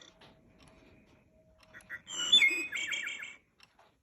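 Recorded wood thrush song played through the speaker of a Mark Feldstein Audubon singing bird clock: after a pause, about two seconds in, one clear, flute-like phrase ending in a quick run of falling notes.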